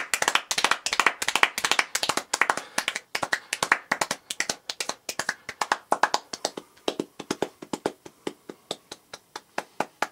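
Very fast hand clapping, a rapid string of sharp claps. It is loudest in the first few seconds, then gets quieter and a little more spaced.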